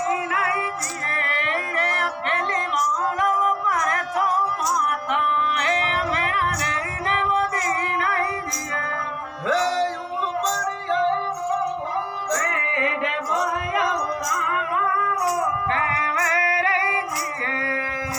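Music: a high, wavering melodic voice gliding up and down over a steady percussive beat.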